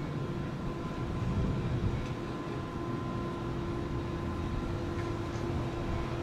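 A train running by: a low rumble with a steady hum over it.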